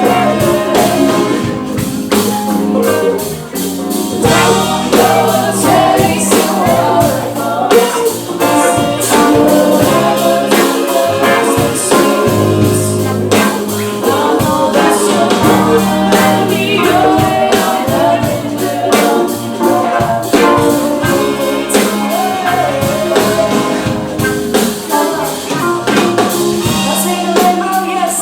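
Live rock band playing an R&B pop song, with drum kit, guitar and bass under sung vocals.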